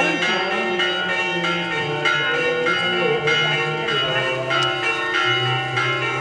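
Orthodox monastery church bells ringing in a continuous peal, several bells struck over and over at an uneven rhythm.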